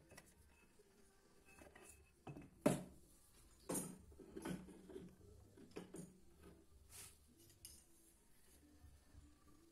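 Faint clunks and clinks of a Yamaha Xeon 125 cylinder head being set down on a workbench and of metal tools being handled. There are about eight separate knocks, the loudest about three seconds in and a cluster over the next few seconds.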